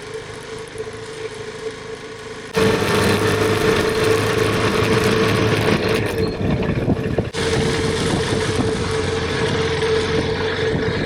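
KTM 390 Adventure's single-cylinder engine running steadily while the loaded motorcycle rides a silty dirt trail. It comes with rushing wind and ground noise, which gets suddenly much louder about two and a half seconds in and drops out briefly for a moment about seven seconds in.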